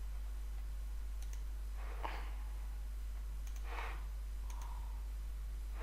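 Faint computer mouse clicks, a few paired press-and-release clicks spread across the stretch, over a steady low hum.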